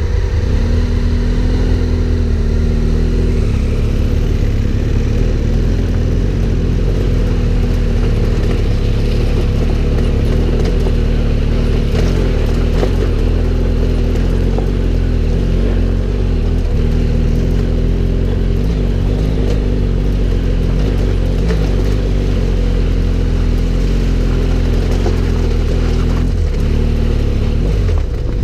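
Twin-cylinder adventure motorcycle engine running steadily while riding, with small changes in pitch as the throttle varies.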